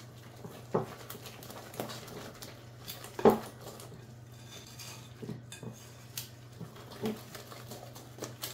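Wire whisk stirring thick cake batter in a glass mixing bowl, with scattered knocks and clinks of the whisk against the bowl, the loudest about three seconds in.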